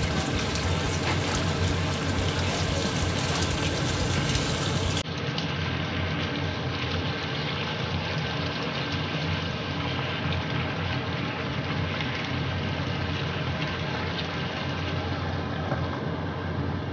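Chicken, bell pepper and potato stew simmering in a pan, a steady bubbling hiss, with a spatula stirring through it and a steady low hum underneath. About five seconds in the sound abruptly turns duller and a little quieter.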